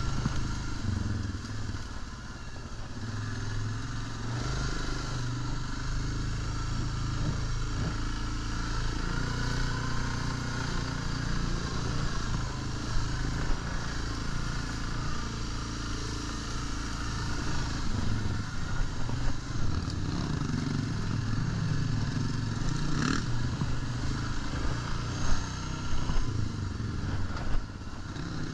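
ATV engine running at a steady, moderate speed as the quad rides over a rough dirt trail, the pitch rising and falling a little with the throttle. A couple of sharp knocks come in the second half.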